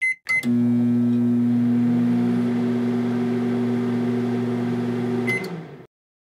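End-card sound effect: a few short high beeps, then a steady low electric hum lasting about five seconds, closed by another beep and a quick fade to silence.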